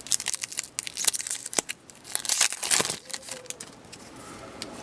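Hockey trading cards and their foil pack wrapper being handled: quick sharp clicks of cards snapping against each other in the first couple of seconds, then a crinkling, tearing rustle of the wrapper around the middle.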